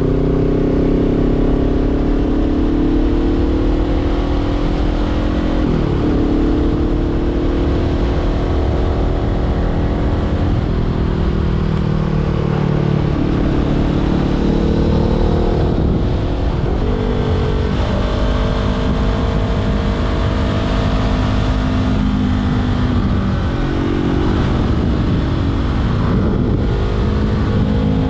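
Honda CBR500R parallel-twin engine through a LeoVince LV-10 exhaust, pulling under load while riding. The pitch climbs, then drops sharply and climbs again several times as the rider shifts gears, over a steady rush of wind.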